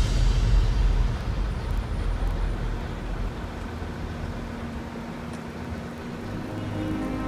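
Low rumble of a heavy-haul convoy, a multi-axle trailer loaded with a large steel vessel, passing close and fading away over the first few seconds. A fainter steady hum is left, and music comes in near the end.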